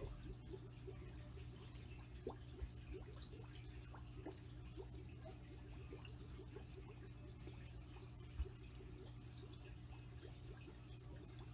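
Faint water sloshing and dripping as a small plastic container is swished in an aquarium and lifted out, rinsing duckweed from it. A steady low hum runs underneath, and there is one knock about eight seconds in.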